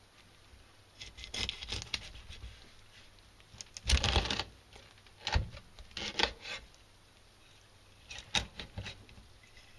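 Kitchen knife cutting the head off a horse mackerel, crunching through the backbone in several short bursts of clicks and knocks, the loudest about four seconds in.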